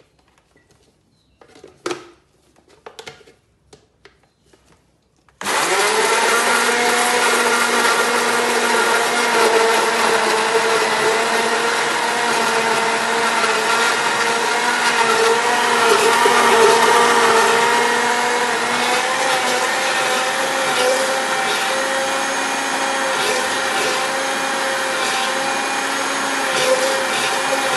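Electric blender puréeing boiled zucchini in its cooking water: after a few light knocks, the motor starts suddenly about five seconds in and runs steadily.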